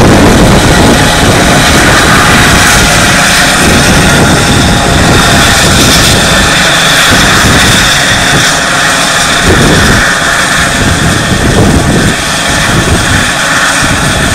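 Medical rescue helicopter sitting on the ground with its main rotor turning, its turbine engines running: a steady high whine over a loud rushing rotor noise and an uneven low rumble.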